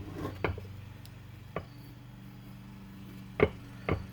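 Four sharp metallic clicks from a Toyota Venza wheel hub and bearing assembly being pushed and turned by hand, over a steady low hum. The new bearing is binding, which the owner takes for bearings that are shot.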